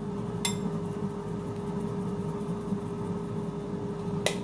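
Steady hum of a countertop air fryer running, with two light clinks of kitchenware, about half a second in and near the end.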